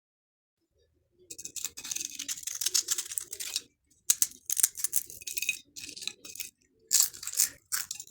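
Crisp homemade microwave potato chips crunching and crackling: a dense crackle starting about a second in, then a run of sharper snaps.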